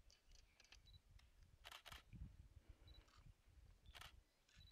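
Near silence: faint outdoor ambience with a low rumble, broken by a few short, sharp clicks, two close together near the middle and one more near the end.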